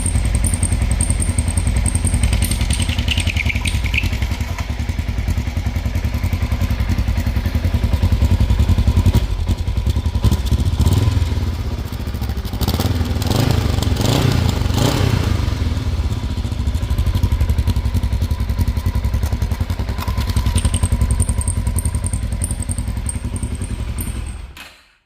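Kawasaki ER-5's 500 cc parallel-twin engine running, heard through its exhaust, with the muffler whistling, a common ER-5 problem. It cuts off suddenly near the end.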